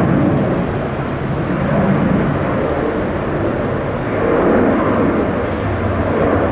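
Jet airliner engines rumbling steadily, swelling a little twice.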